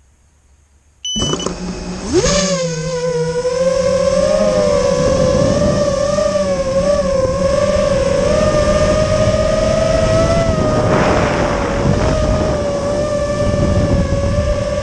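Brushless motors and propellers of an FPV quadcopter: they start about a second in and climb in pitch, then hold a steady, slightly wavering whine with a rush of noise as the drone flies.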